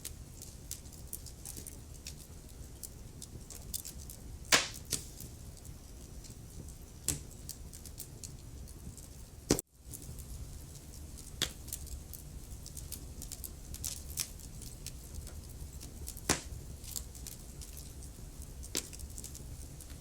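Wood fire in a fireplace crackling steadily over a low rumble of flame, with frequent small ticks and a few louder pops, about four in all. Near the middle, right after one pop, the sound cuts out for an instant.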